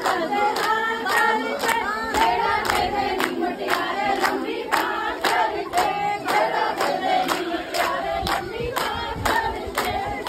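Group of women singing a Punjabi folk song together over steady rhythmic hand-clapping, about two claps a second.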